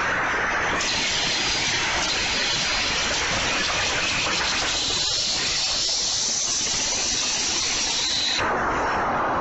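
Pachislot machine sound effect: a loud, steady hissing rush with a thin high whistle over it. The upper hiss drops away near the end.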